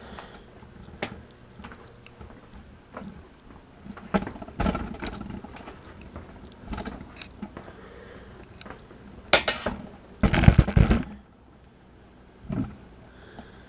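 Handling noise as a camera is carried across a room: scattered knocks, clicks and rattles, with a louder rattling clatter about ten seconds in.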